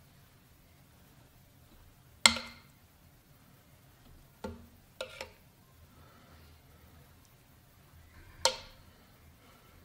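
Metal tongs clinking against a stainless skillet and a ceramic plate as sauced chicken wings are lifted out and plated: five sharp clicks with a short ring, the loudest about two seconds in and again near the end.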